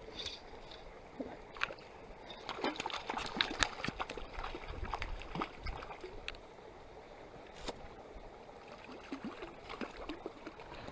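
Light splashing and trickling water with scattered small clicks and knocks, busiest in the middle: a hooked trout being landed and handled in shallow water at the lake's edge.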